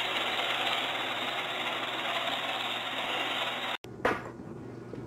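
Robot vacuum running, a steady whirring hum of its motor and brushes, which cuts off abruptly nearly four seconds in. After it come a few light taps of a cat's paws on a hard floor.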